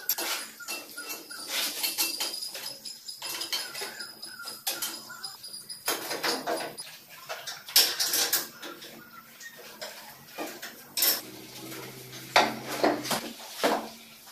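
Irregular metallic clinks and knocks of wrenches, bolts and steel parts being handled while a coil-spring shock absorber and wheel are bolted onto a buggy's frame, with a few sharper taps about 8, 11 and 12 seconds in.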